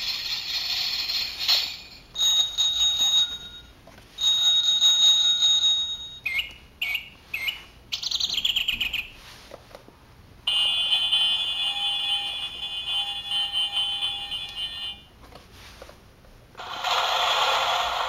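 A run of short recorded sound effects played one after another from the small speaker of a children's push-button sound book. There are about seven separate clips of one to five seconds each, with brief gaps between them. Some carry steady high tones and some have quick chirping glides in pitch.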